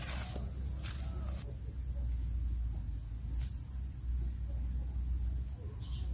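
Leafy branches rustling as a person pushes through dense bushes for about the first second and a half. Then an insect chirps in a high, even pulsing series, about three pulses a second, over a steady low rumble.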